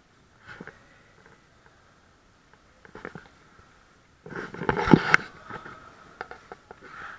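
Bubble-soccer play on a sports-hall court: scattered scuffs and shoe squeaks on the floor, with a loud burst of bumping and commotion about four and a half to five seconds in.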